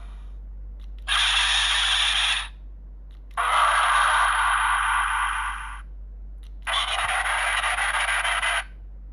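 Electronic sound effects from the speaker of a DX GUTS Sparklence transformation toy: three separate bursts of hissing noise, each one to two and a half seconds long, that start and cut off abruptly.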